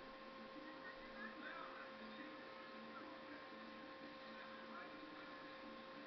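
Faint, steady electrical hum made of two level tones, one middling and one higher. Faint, indistinct voices lie under it.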